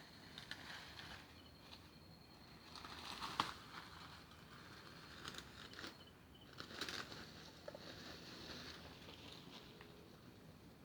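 Faint rustling and crackling in dry leaf litter, in irregular bursts with the loudest about three and a half and seven seconds in: armadillos moving and foraging through the undergrowth. A steady high insect tone runs underneath.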